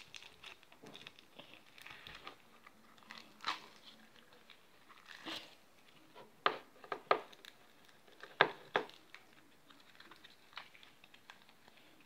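Hands kneading slime and pulling it out of its container: soft crackling with scattered sharp pops, a few loud ones in the middle.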